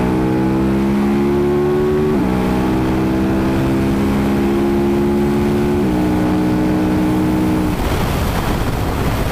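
KTM 1290 Super Duke R's V-twin engine pulling hard under full throttle, its pitch climbing steadily, with two quick upshifts about two and six seconds in. Near the end the throttle closes and the engine note gives way to wind rushing over the helmet microphone.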